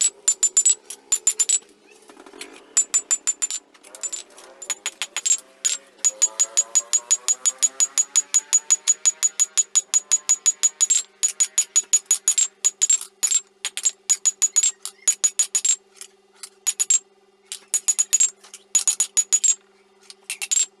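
A hand hammer strikes a red-hot steel blade on a steel anvil in fast runs of sharp, ringing blows, several a second, with short pauses between runs. This is a chainsaw guide bar being forged into a bolo blade. A steady low hum runs underneath.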